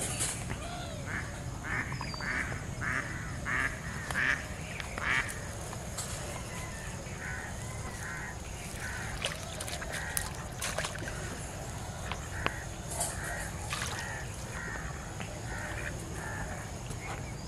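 Ducks quacking, a run of short calls roughly one or two a second, with a brief pause about six seconds in before the calling resumes.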